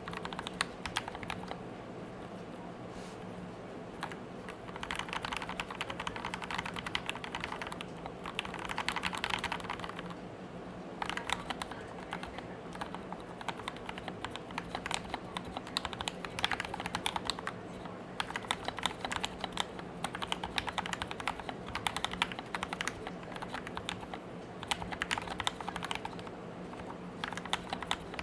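Anne Pro 2 mechanical keyboard with Gateron Red linear switches lubed with Krytox 205g0, typed on in fast runs of keystrokes with brief pauses between them. A faint steady hum sits underneath.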